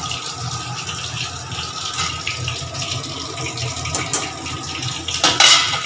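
Hot oil sizzling and crackling in a kadai with a cumin and bay-leaf tempering, a steady hiss that flares up louder briefly near the end.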